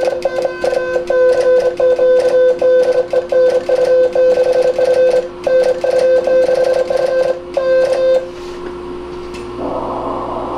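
A Morse code (CW) signal on the 40-metre amateur band heard from a receiver: one steady tone keyed rapidly in dots and dashes over a steady hum. The keying stops about eight seconds in and leaves only receiver hiss.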